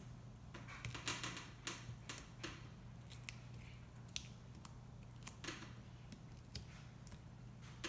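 Fingers picking and peeling an adhesive tape pad off the cells of an 18-volt NiCad drill battery pack: faint, scattered scratches and small clicks over a low steady hum.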